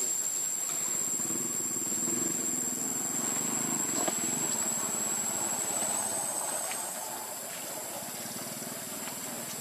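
Outdoor ambience: a steady high-pitched insect trill, with a low engine hum underneath that fades about seven seconds in.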